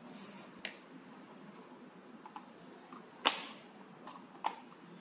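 A few sharp plastic clicks and knocks, the loudest about three seconds in, as the borescope's plastic handle and monitor unit are handled and pushed together.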